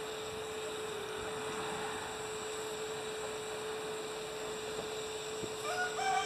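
Butane soldering iron in heat-gun mode running with a steady hum and soft hiss while heating a rubber antenna grommet to soften it. Near the end a chord of steady horn-like tones starts up.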